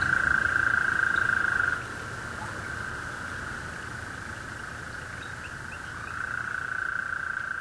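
A chorus of frogs calling together in a steady, high-pitched wash of calls. It is louder for the first two seconds, drops back, and swells again near the end.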